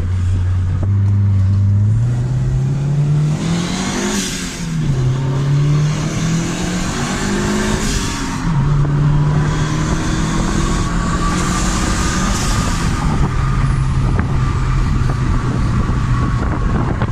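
Turbocharged Honda Civic D16 four-cylinder engine, heard from inside the car, accelerating through the gears: its pitch climbs and drops back at each shift, about four, eight and thirteen seconds in. Bursts of hiss come in around the shifts.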